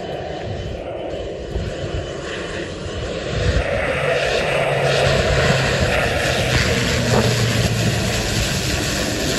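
Twin Pratt & Whitney Canada PT6A-52 turboprop engines of a Beechcraft King Air 250 running as the plane lands. The engine and propeller noise grows louder a few seconds in as the plane comes down the runway past the listener, and its propeller hum drops in pitch near the end as it goes by.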